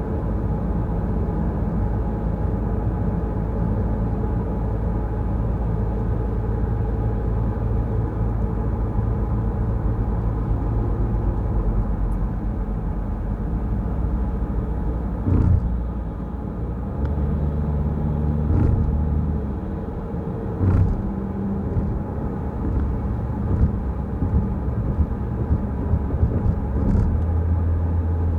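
Car driving, with a steady low engine and road rumble. A few sharp thumps come about halfway through and again a few seconds later, such as wheels hitting bumps in the road.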